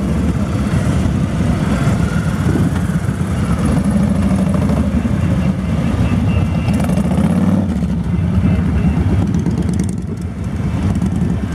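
A procession of motorcycles, mostly cruisers, riding slowly past one after another, their engines running at low revs in a steady low rumble. The sound dips briefly near the end.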